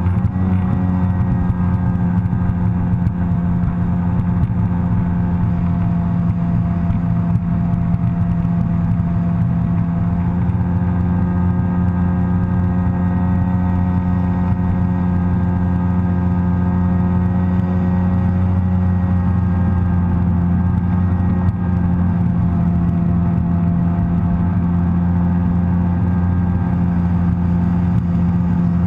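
Sea-Doo personal watercraft's engine running steadily at cruising speed, a constant engine tone that drifts slightly in pitch partway through.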